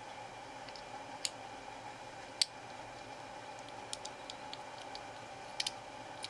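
Small sharp clicks and ticks of a gas-blowback airsoft rifle's trigger-assembly parts being handled as a pin is lined up with its hole and pushed part-way in. The clicks are scattered and irregular: the loudest about two and a half seconds in, a quick double click near the end.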